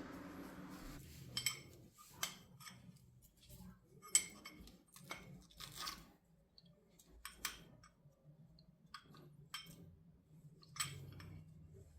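Faint, irregular light metallic clicks and clinks of small parts and hand tools being handled during a motorcycle front brake pad change, over a low steady hum.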